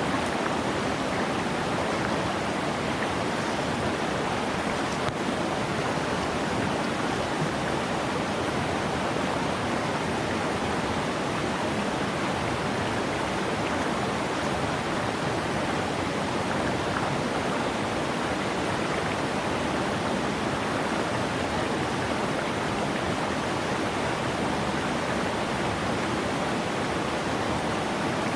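A mountain stream running high and fast over rocks: a steady, unbroken rush of water.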